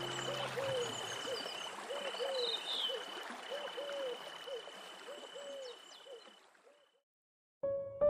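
Forest waterfall and night-creature ambience: a steady rush of falling water, a high continuous insect trill, and a low call repeating about twice a second with a few high chirps, all fading out near the end. Soft piano music begins just before the end.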